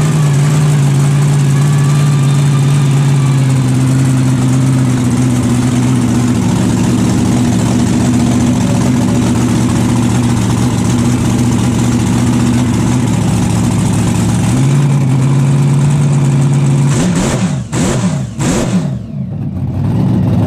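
A 1500-horsepower monster truck engine, heard from inside its cab, running at a steady held speed, then revved in a few quick rising blips near the end before settling again.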